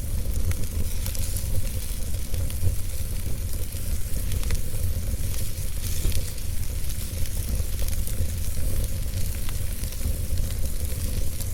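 Fire crackling steadily, with irregular sharp pops and snaps over a constant low rumble.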